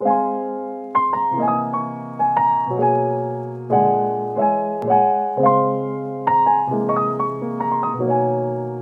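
Background piano music: a slow run of chords and single notes, each struck and then fading away, a new one every second or so.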